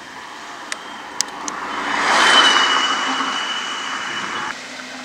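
A motor vehicle passing on the road beside a moving bicycle: its noise swells to a peak about two seconds in and then fades, with a steady high whine over it. The sound cuts off suddenly about four and a half seconds in.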